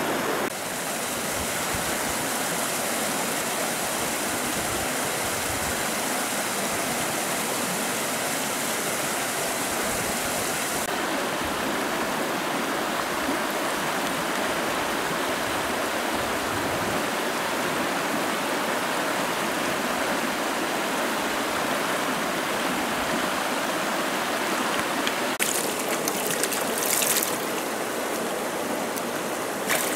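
River water rushing steadily over a shallow, rocky riffle. Near the end, a few short splashes of water.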